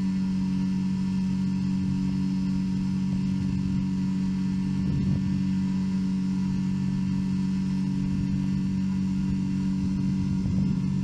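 Ultralight aircraft engine droning at a steady cruise setting, with wind buffeting the microphone in the open seat.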